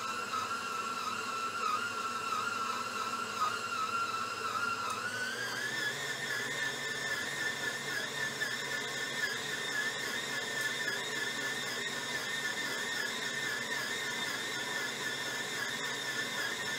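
Electric stand mixer motor running under load as it kneads bread dough, a steady whine that steps up in pitch about five seconds in as the speed is turned up, then holds at the higher pitch.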